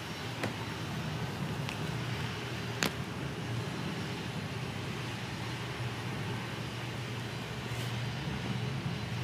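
Steady low rumble of jet airliner engines heard from inside an airport terminal, with a few light clicks, the sharpest about three seconds in.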